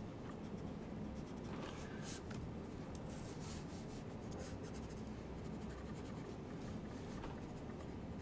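Grayscale felt-tip marker strokes rubbing across drawing paper, a few short faint scratches, over a steady low background hum.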